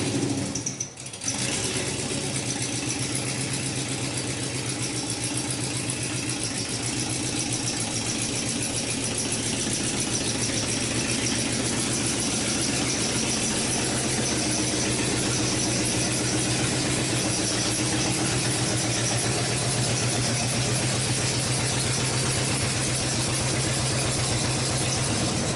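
The 5.7L Hemi V8 of a 2005 Chrysler 300C idling steadily, with a fast, even run of firing pulses.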